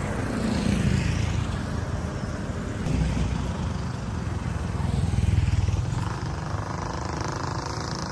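Motorcycle engine running on the move, growing louder about five seconds in.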